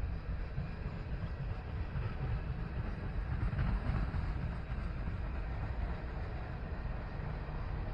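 Freight train rolling past: a steady low rumble of cars on the rails, swelling slightly about halfway through.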